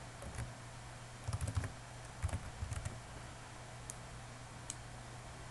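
Computer keyboard typing: a few short runs of keystrokes, then two single clicks near the end, over a faint steady low hum.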